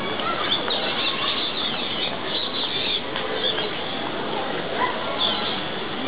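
Baby Abyssinian colobus (mantled guereza) chattering: a quick run of short, high squeaky chirps for about two seconds, then a couple more squeaks near the end.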